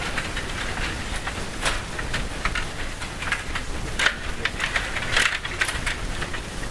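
Stiga Play Off table hockey game in play: a run of plastic clicks and clatters as the metal control rods are pushed and twisted and the plastic players knock the puck, with sharper clacks about four and five seconds in.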